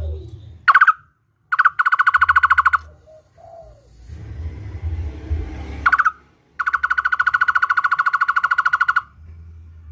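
Barbet (takur) calling twice. Each call is a short rising note followed by a fast, even trill of identical notes, about a dozen a second. The first trill is brief, about a second and a half in; the second lasts over two seconds near the end.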